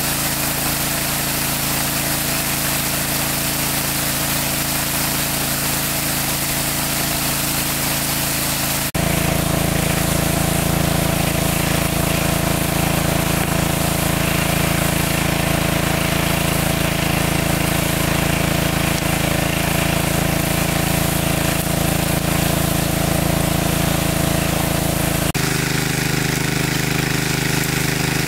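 A motor drones steadily. Its pitch and tone change abruptly about a third of the way in and again near the end.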